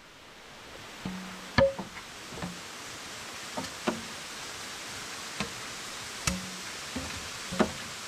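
Hollow green bamboo poles knocking against each other and the rock as they are set in place: about ten irregular knocks, several with a short hollow ring, the loudest about one and a half seconds in. A steady rush of falling water lies behind, fading up over the first few seconds.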